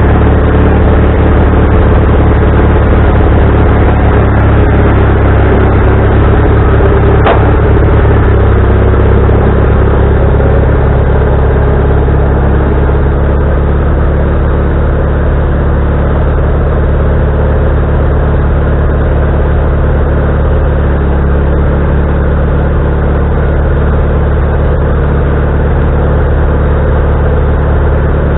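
Wood-Mizer LT40HD band sawmill running and sawing a log: a steady engine drone under the band blade, with a higher whine easing down in pitch over the first several seconds and one sharp click about seven seconds in.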